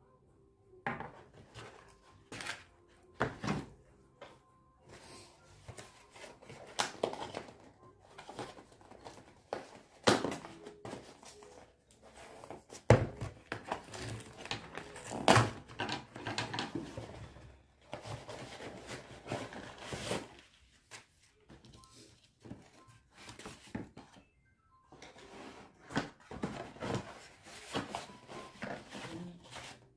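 Cardboard mailer and small product packets being handled and opened: irregular rustling and crinkling with scattered sharp knocks, the loudest near the middle.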